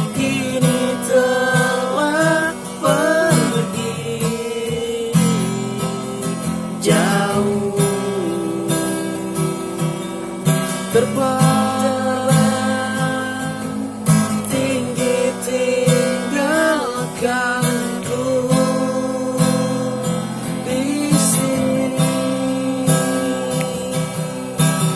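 Music led by acoustic guitar, strummed and plucked, between sung lines of a ballad, with a melody line that now and then slides in pitch.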